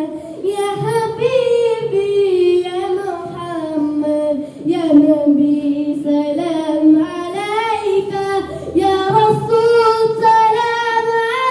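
A boy singing a naat, a devotional song praising the Prophet, solo into a handheld microphone. The voice is unaccompanied and holds long, gliding notes.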